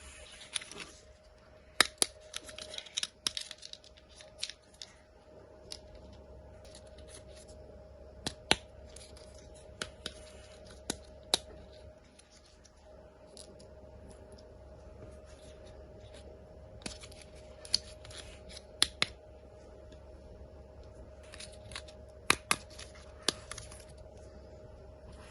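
Toy car packaging being handled and opened: crinkling and tearing of packaging with scattered sharp clicks, in several bursts, over a faint steady hum.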